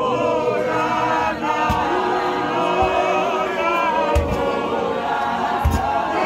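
A group of voices singing unaccompanied in harmony, a choir of mourners singing a hymn. A few dull low thumps sound under the singing.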